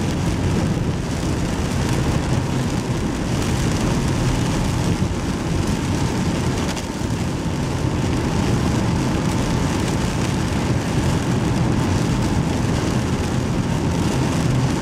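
Rain falling on a moving car, heard from inside the cabin over steady road and engine noise.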